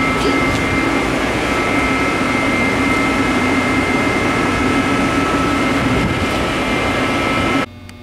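Bank of large axial cooling fans on a vacuum furnace's cooling unit running: a steady rush of air with a few steady tones in it. It cuts off suddenly near the end, leaving a faint electrical hum.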